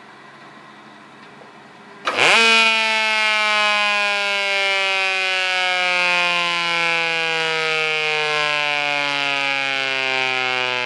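Federal Signal Thunderbolt 1000B siren's chopper sounding without its horn. After a faint steady hum, a loud siren wail starts suddenly about two seconds in, jumps to full pitch and then falls slowly in pitch.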